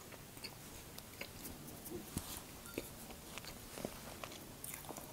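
Quiet chewing of a soft muffin, with faint, scattered small mouth clicks.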